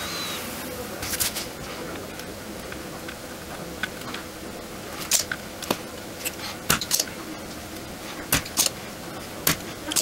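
Scattered sharp clicks and taps of small tools and parts handled on a repair bench, over a faint steady hum.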